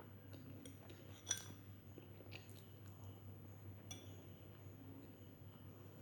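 Quiet chewing of food, with a sharp, ringing clink about a second in and a smaller click near four seconds.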